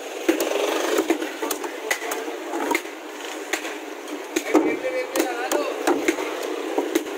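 Metal blade jabbing and chopping through crushed ice in a large steel pot: an irregular run of crunching knocks, about two to four a second.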